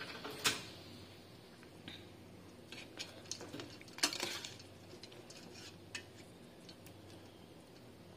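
Metal spoon clinking against a stainless steel pot of ice water and tofu: scattered light knocks, the loudest about half a second in and about four seconds in.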